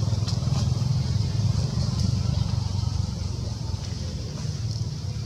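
A motor engine running with a low, steady rumble that eases slightly quieter over the last couple of seconds, over a faint steady high hiss.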